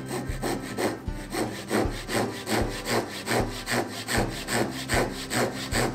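Fine-toothed hand saw cutting into a wooden block, in quick, even strokes of about three a second.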